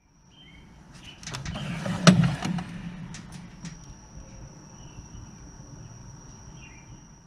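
A metal tool chest drawer sliding open on its rails, with clicks and a clatter of the wrenches and ratchets inside. The sharpest clack comes about two seconds in, and a thin steady high tone follows.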